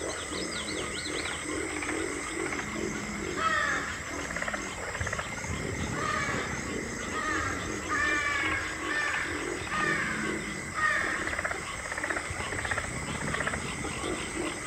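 Recorded wild animal calls: a series of short, falling calls about once a second, over a steady high tone and a low pulsing background.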